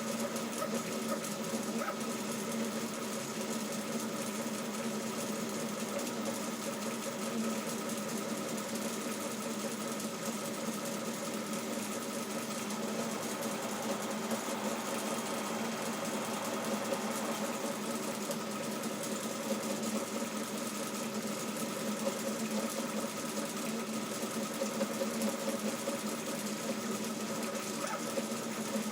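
CoreXY 3D printer running a test print: its stepper motors hum steadily in several pitches as the print head moves without pause.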